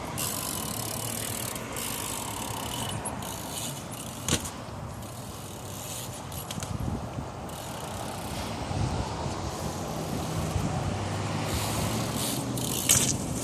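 A trick bike rolling over hard ground, with a single sharp knock about four seconds in and a couple of clicks near the end, over a steady outdoor noise.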